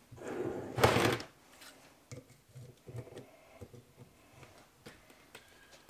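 A metal tractor part being handled on a wooden workbench: a short scrape about a second in, then a few light knocks and clicks.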